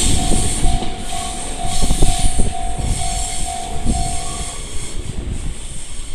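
Level-crossing alarm of the Chichibu-sound type ringing about twice a second, over a Jōmō Electric Railway train passing with wheel knocks on the rail joints. The bell stops about four and a half seconds in and the train noise fades.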